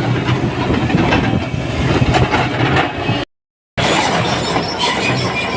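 JCB 205 excavator running, with a steady engine hum under clanking and rattling of metal. The sound drops out completely for about half a second just after three seconds in, then the same machine noise carries on.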